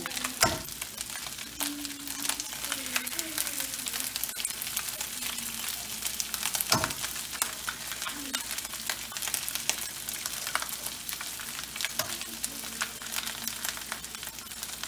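Fried rice sizzling and crackling steadily in hot rendered pork lard in a cast-iron skillet. Three sharp taps, about six seconds apart, as eggs are cracked and dropped into the pan.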